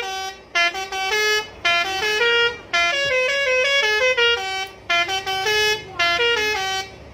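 Truck's telolet musical air horn playing a tune: quick runs of stepped, multi-toned notes in several short phrases with brief breaks between them, stopping near the end.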